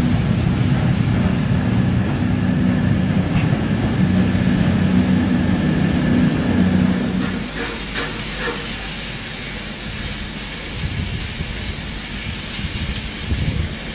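A train running with a steady low drone and a faint rising high whine; the drone stops about seven and a half seconds in, leaving a hiss and a few light clicks.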